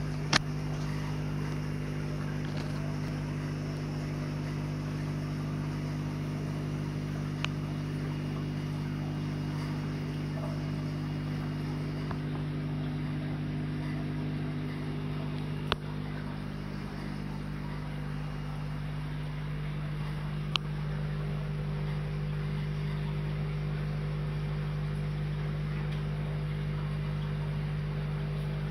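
Steady low machine hum made of several constant tones, with a few sharp single clicks.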